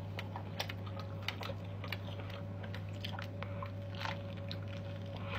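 A person chewing and biting into a hand-held steak topped with cheese: many small, soft wet mouth clicks and smacks, over a steady low hum.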